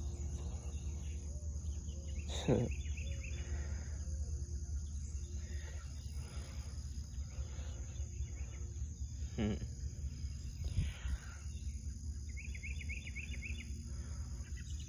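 Outdoor ambience: insects droning steadily at a high pitch over a low steady rumble. A bird chirps a quick run of repeated notes about twelve seconds in, and there are two brief falling sounds earlier.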